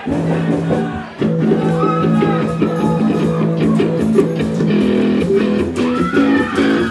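Live rock band playing, led by electric guitar: a held guitar note opens, and the fuller band sound comes in loudly about a second in.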